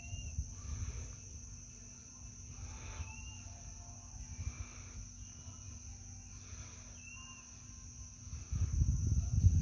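Steady, high-pitched insect buzzing, with a short whistled call repeating every two to three seconds. Low rumbling on the microphone grows much louder near the end.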